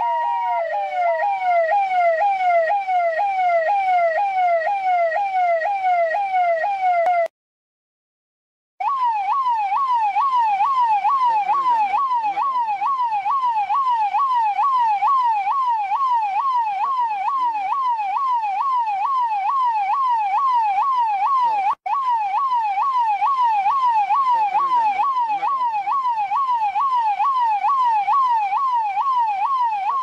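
Indian police car's electronic siren sounding in a fast yelp, a quick rising wail repeated over and over, after a last hi-lo note at the very start. It cuts out for about a second and a half roughly a quarter of the way through, then comes back slightly higher, with a brief gap near three quarters.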